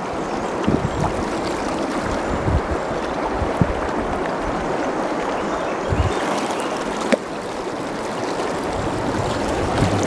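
Small stream water rushing steadily, with a few faint knocks over it.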